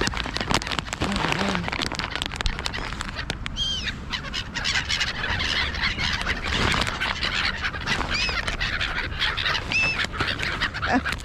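A flock of ducks and other birds calling together in a dense, continuous clamour, with a few high, arching calls standing out three times.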